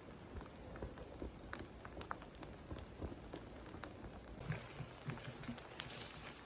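Freshly lit log fire catching, kindling and birch bark crackling with scattered small sharp pops. A few duller low knocks come in during the last couple of seconds.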